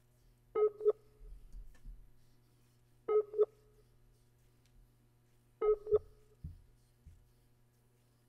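Skype outgoing-call ringing tone, three rings about two and a half seconds apart, each ring a quick double pulse: the call is ringing and nobody answers.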